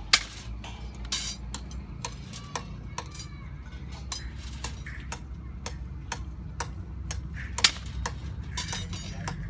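Steel rebar being hand-bent and handled, giving irregular metallic clinks and clanks with a ringing edge, two sharp clanks louder than the rest. A low steady hum runs underneath.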